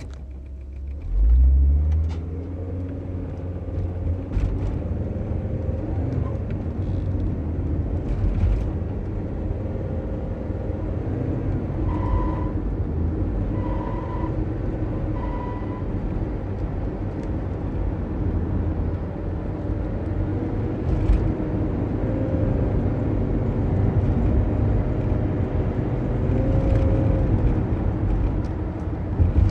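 Volkswagen T4 van running and driving, with a steady low engine and drivetrain rumble and revs climbing sharply about a second in. The owner's recording of an abnormal transmission noise and transmission slipping. Three short beeps sound midway.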